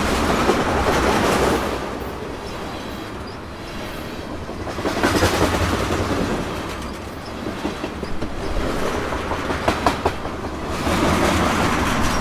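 Freight train passing, its cars rumbling and rattling over the rails with clickety-clack wheel beats. The sound swells and eases every few seconds as cars go by, with a few sharp clacks from the wheels crossing rail joints.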